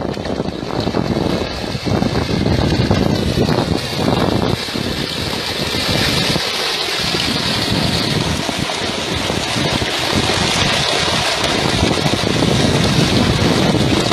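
Wind noise on the microphone over a steady rush and splash of river water beside a boat.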